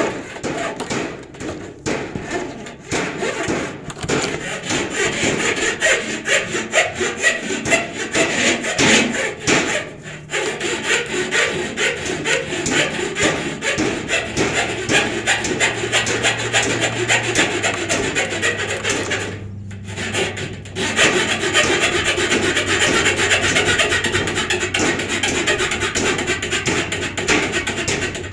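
Wood being sawn, a continuous rasping of fast saw strokes, with short pauses about ten seconds in and again about twenty seconds in.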